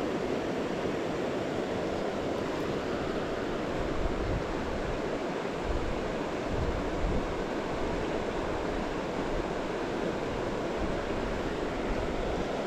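Steady rushing of a mountain creek's flowing water, with wind gusting against the microphone at times.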